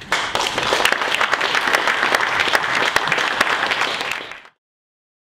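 Audience applauding; the applause cuts off suddenly about four and a half seconds in.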